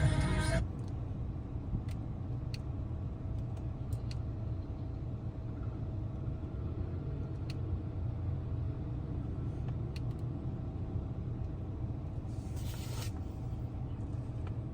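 Music cuts off just after the start, leaving a steady low rumble of a car interior, with a few faint clicks and a brief hiss near the end.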